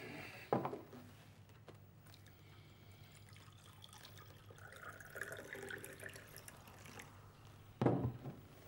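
Juice poured from a glass jug into a glass, a trickling pour in the middle of the stretch. A knock about half a second in, and a louder knock near the end.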